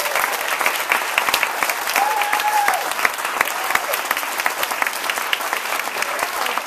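Audience applauding: many people clapping steadily after a song.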